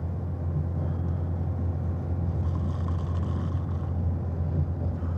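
Train running noise heard inside a passenger carriage: a steady low rumble.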